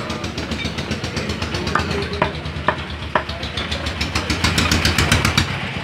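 Butcher's cleaver chopping beef on a wooden log block: a few sharp strikes about half a second apart, each with a short ring, over a steady, rapid rattling knock.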